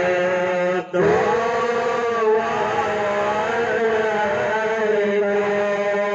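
A man's voice chanting a slow devotional melody in long, drawn-out notes that glide gently in pitch, with a short break for breath about a second in.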